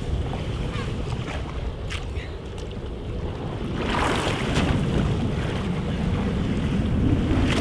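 Wind buffeting the microphone over steady water noise along a boat's hull, with a hooked tuna thrashing and splashing at the side of the boat about four seconds in and again near the end.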